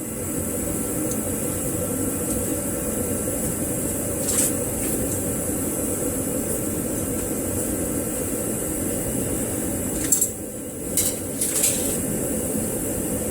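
A steady hum runs throughout, with a few short sharp clicks of hand tools on the rear suspension bolts: one about four seconds in and several more near the end.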